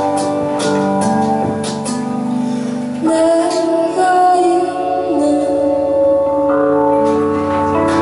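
Live performance: a woman singing a slow song to her own electric keyboard accompaniment. The held keyboard chords change about three seconds in and again near the end.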